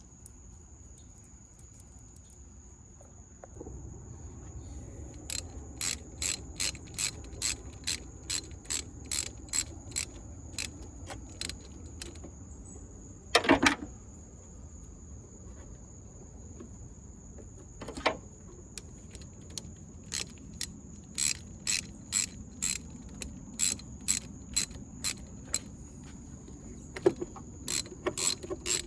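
Hand ratchet wrench clicking in steady strokes, about two clicks a second, as bolts are run into battery terminals. A single loud metal clank comes about halfway through, and a smaller one a few seconds later.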